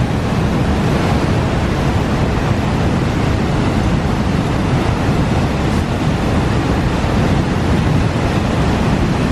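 White-water river rapids rushing steadily, with wind buffeting the microphone.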